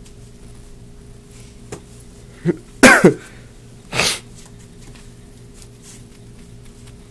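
A person sneezing: one loud sneeze about three seconds in, then a shorter breathy burst a second later.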